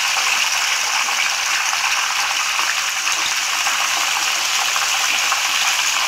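Masala-coated rohu fish pieces deep-frying in hot oil in a karahi: a steady sizzle as the moisture in the fish cooks out.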